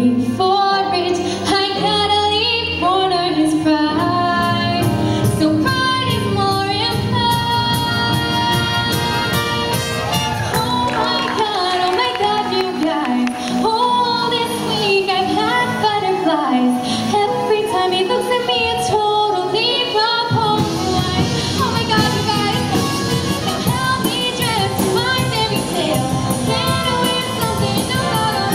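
High school show choir singing with instrumental accompaniment, the sound growing fuller about twenty seconds in.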